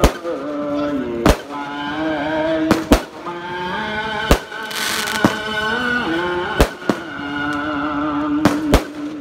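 Fireworks going off: about seven sharp bangs spaced irregularly, with a brief hissing rush about halfway through. Underneath runs music with a held, wavering melody.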